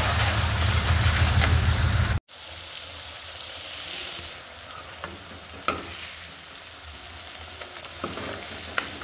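Onion-garlic paste sizzling in hot oil in a metal kadai while it is stirred with a spoon, frying until golden and the oil separates. The sizzle is loud for about two seconds, then cuts to a quieter sizzle with a few sharp taps of the spoon against the pan.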